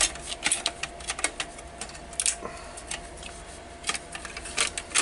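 Irregular light clicks and rattles of a headphone amplifier's circuit board and its parts being handled.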